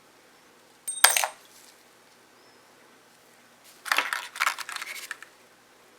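A sharp metallic click about a second in, then a short clatter of small metal clicks and rattles near the middle. These come from a punch working the factory trigger connector out of a Glock 42's plastic trigger housing.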